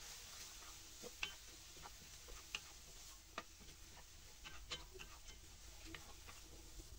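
Spatula stirring dry red lentils in a metal karahi: faint, irregular clicks and taps as it knocks and scrapes the pan while the lentils are fried.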